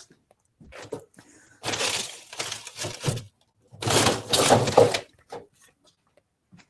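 Two bursts of knocking and scraping noise from objects being handled and moved: the first about a second and a half long, the second about a second, with a few small knocks around them.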